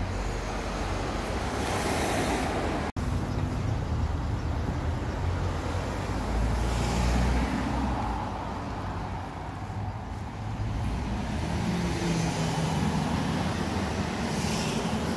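Road traffic on a village street: a steady low rumble of passing vehicles, with a few cars swelling up and going by.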